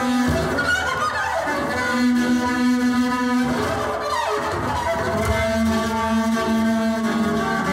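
Double bass bowed arco: long held notes with rich overtones, with sliding glides in pitch between them.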